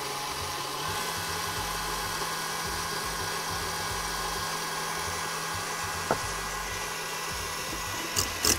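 KitchenAid Artisan stand mixer running steadily with its wire whisk, whipping cream cheese as cream is poured in; its motor pitch steps up slightly about a second in. A few sharp clicks near the end.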